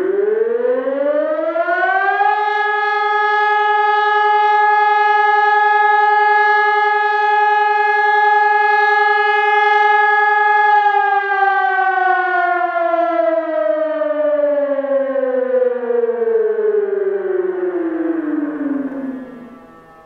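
HELIN HES 1200 electronic siren sounding the first tone of the German fire alarm signal (Feueralarm). It rises over about two seconds to a steady tone, holds, then falls slowly and stops near the end.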